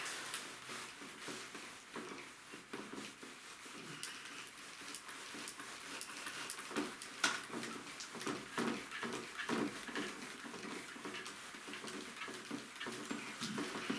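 A cloth duster rubbing marker ink off a whiteboard in repeated back-and-forth wiping strokes.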